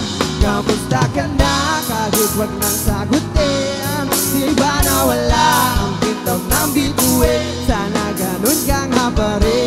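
Live band playing: drum kit, electric bass and electric guitars, with a melody line that slides up and down in pitch over them.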